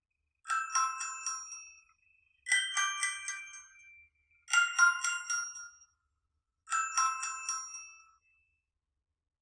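An HTC Desire C ringtone playing: a short phrase of quick, high ringing notes, repeated four times about two seconds apart.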